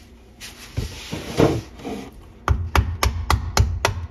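A screwdriver scraping and prying inside a sawn PVC drain fitting, then a hammer tapping the screwdriver about seven times in quick succession, roughly four knocks a second, to chisel the old fitting out of the pipe threads.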